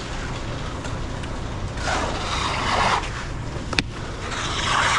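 A machine engine runs steadily with a low rumble, while a high-pressure hose hisses in two bursts of spraying water. There is a sharp click about four seconds in.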